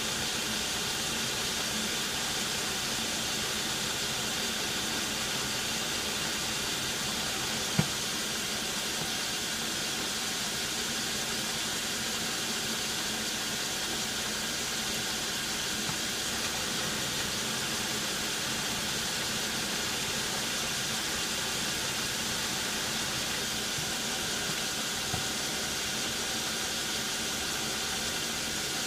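Logan metal lathe running steadily at slow speed (47 RPM) while the tool takes a light, smooth profiling cut on the side of a gear held in a four-jaw chuck: an even mechanical hum and hiss from the machine's motor and gearing. A single sharp click about eight seconds in.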